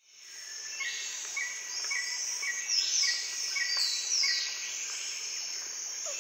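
Outdoor birdsong fading in. Short high chirps repeat about twice a second, and long high whistles slide down in pitch every second or so.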